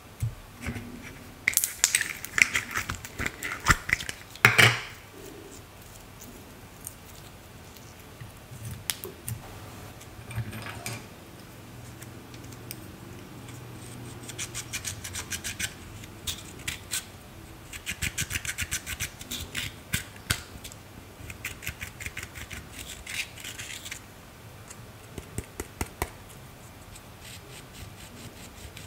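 A pen tip scraping and breaking up pressed eyeshadow in a plastic palette, in bursts of rapid scratchy clicks. Early on there is handling noise with a sharp knock about four and a half seconds in.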